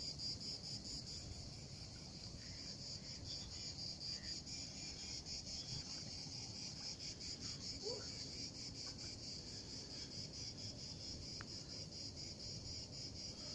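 Steady outdoor insect chorus: a high, fast-pulsing buzzing trill that keeps on without a break, with a faint low rumble beneath it. A brief rising chirp comes about eight seconds in.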